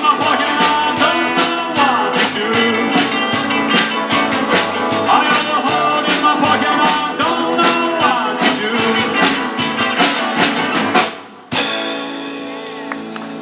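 Rock or blues-style band music with a steady drumbeat and guitar. Near the end it drops out for a moment, then comes back with a cymbal-like crash and carries on more softly.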